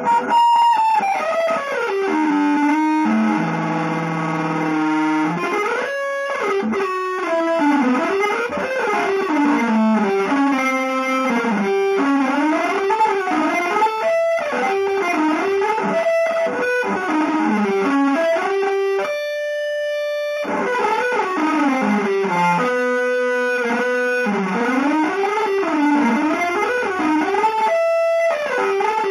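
Electric guitar with effects and distortion playing fast single-note lines that zigzag up and down. Near the start there is a slower falling figure, and about two-thirds through one long note is held.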